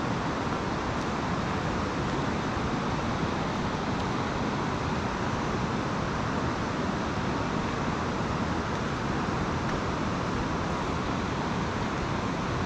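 Steady rushing of the Elwha River's white-water rapids, an even noise with no breaks or changes.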